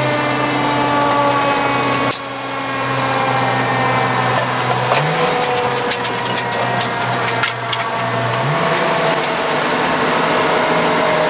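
Fire engine running on the road, heard from inside the cab: a steady mechanical hum whose tones sink slowly in pitch, with two brief low rises in pitch, about five and eight and a half seconds in.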